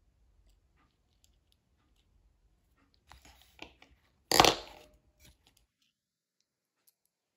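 Faint clicks of small metal parts being handled, then one sharp clack about four and a half seconds in, the loudest thing here, as a pair of pliers is handled and set down on the wooden table, with a short metallic ring after it.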